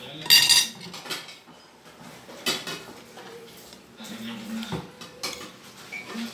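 Metal spoon and fork clinking and scraping on a ceramic plate of rice: a few separate clinks, the loudest about half a second in with a short ringing.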